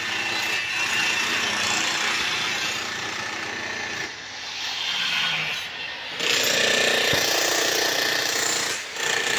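Electric power tool running against metal: a continuous rasping noise with a faint steady whine, getting louder about six seconds in and briefly easing off near the end.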